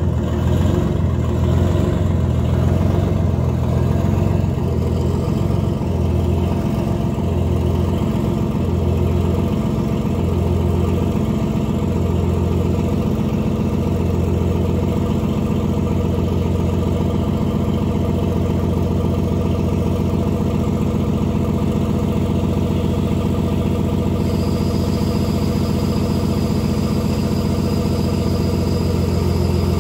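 Detroit Diesel 6-71 two-stroke inline-six diesel of a 1973 American LaFrance Pioneer fire engine running steadily. For the first several seconds its low note pulses slowly, then it evens out into a smooth, even run.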